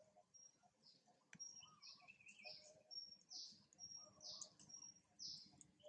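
Faint bird calls: a short high whistle followed by a falling sweep, repeated about once a second.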